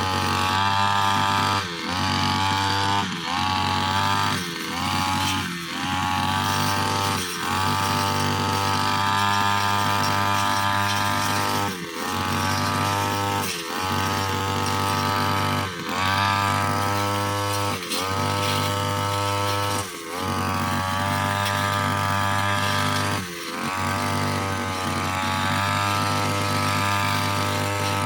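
Two-stroke brushcutter engine running at high revs. About a dozen times it briefly dips in pitch and climbs back up, as the blade bites into grass and brush or the throttle is eased and reopened.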